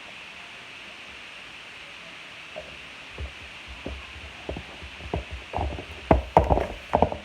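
Slime being handled and squished in a container: after about three seconds of only background hiss, irregular soft squelches and thumps start and grow louder and closer together near the end.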